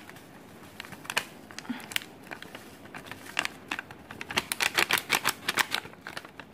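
Crinkling of a plastic coffee-powder packet as it is tipped and shaken to pour ground filter coffee into a steel coffee filter: a run of sharp, irregular crackles that grows busier about four seconds in.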